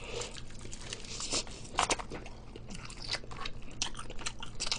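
Crispy fried chicken being bitten and chewed close to the microphone: irregular crunches of the breaded crust, loudest around a second and a half to two seconds in.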